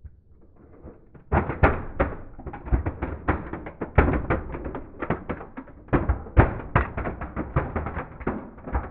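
Toy microbus models crushed under a slowly rolling car tyre: a dense, irregular run of cracking and crunching snaps that starts about a second in and keeps going as the tyre presses down.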